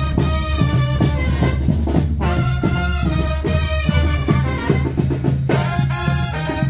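Latin dance music with brass horns playing held chords over a steady bass and drum beat.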